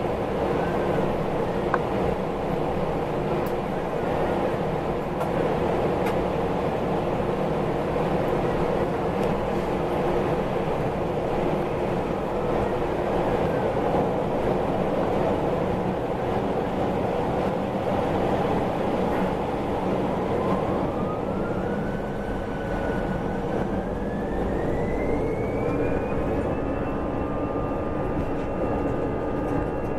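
Airbus A320's CFM56 jet engines running with a steady rumble. About two-thirds of the way through, a whine rises steeply in pitch and then holds high as the engines spool up, typical of takeoff thrust being set.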